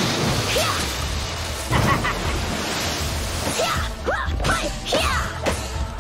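Cartoon storm sound effects: steady heavy rain, with the whooshes and hits of a scuffle and short rising yelps in the second half.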